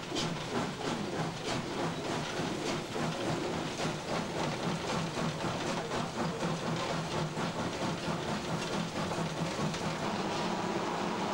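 TY2 2-10-0 steam locomotive working under way, heard from inside its cab: regular exhaust beats over a steady hiss of steam and rolling noise. The beats come about twice a second at first and more closely later, blurring into steadier running near the end.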